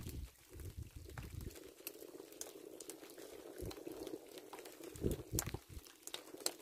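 Light drizzle pattering, with scattered sharp ticks of drops and low rumbles near the start and about five seconds in.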